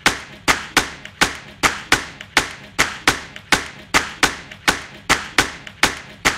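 Dry percussion hits on their own, with no melody or voice, keeping a steady beat of a little under three strikes a second in a break of a pop song mashup.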